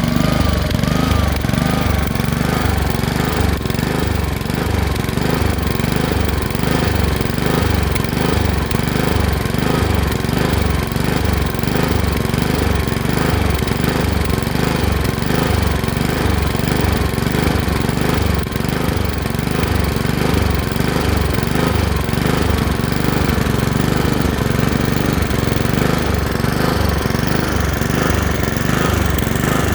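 Honda HRX217 lawn mower engine running and surging, its speed rising and falling about twice a second in an even rhythm. The surging is a sign of a dirty carburetor, which cleaning cured.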